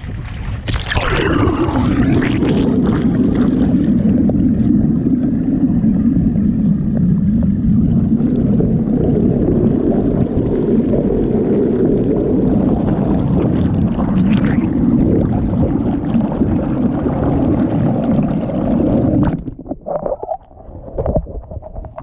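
Water heard from a camera plunged beneath the surface beside a moving boat: a splash as it goes in about a second in, then a loud, steady, low underwater rush of water streaming past. Near the end the camera breaks the surface, and the rush gives way to splashing.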